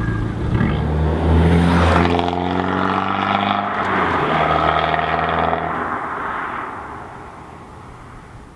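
Abarth 695 Biposto Record's turbocharged 1.4 T-Jet four-cylinder with an Akrapovic exhaust, pulling away and accelerating hard, its note rising in pitch through the gears. It then fades steadily as the car drives off into the distance.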